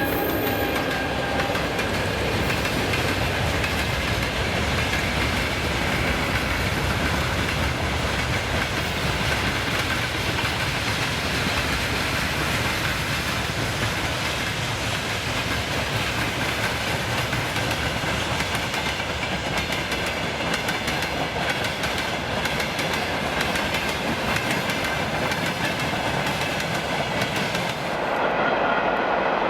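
Freight train wagons rolling past, their wheels clattering steadily over the rail joints. The sound changes near the end.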